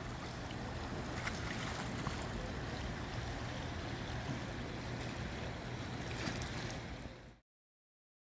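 Wind and choppy waves washing over a flooded lakeshore, with wind noise on the microphone. The sound cuts off suddenly about seven seconds in.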